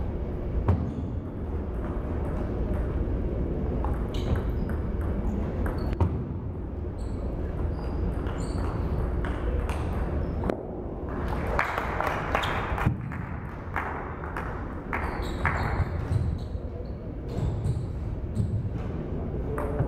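Table tennis ball clicking against paddles and the table in a rally, short sharp hits at uneven intervals, over a steady low hum.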